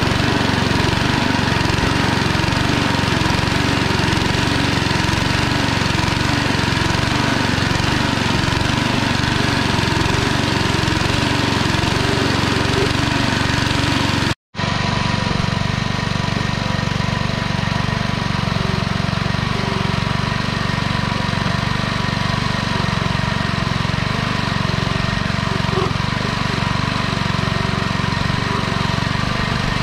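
Motor-driven cassava grater running steadily as peeled cassava roots are pressed into it and grated. The sound cuts out for an instant about halfway, then carries on.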